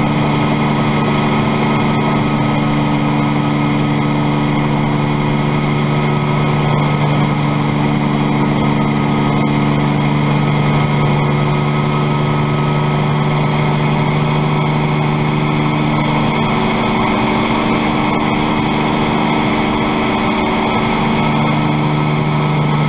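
Bell 47 helicopter's piston engine and rotor running steadily: a constant hum made of several steady tones. The lowest tone weakens about two thirds of the way through and comes back near the end.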